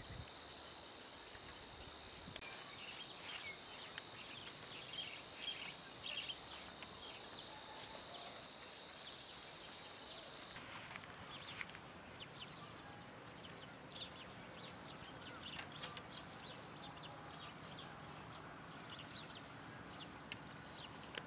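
Faint rural outdoor ambience: a steady high insect drone that stops about halfway through, with short high chirps scattered throughout.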